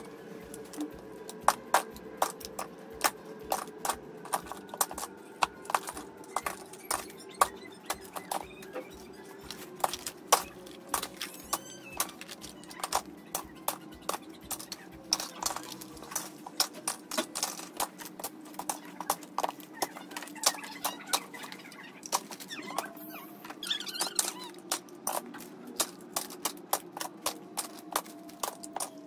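Hard plastic toys and large building blocks clattering as they are picked up and dropped into a plastic bin: a long run of irregular sharp clicks and knocks.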